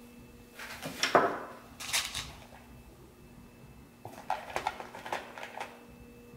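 Small hard hardware items clattering and clicking as they are handled on a workbench: two short clattering bursts in the first two seconds, then a quick run of light clicks about four seconds in, over a faint steady hum.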